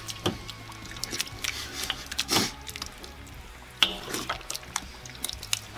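Wet slurping and smacking of two people speed-eating baked beans off spoons, with short clicks of spoons against a stainless steel bowl, over faint background music.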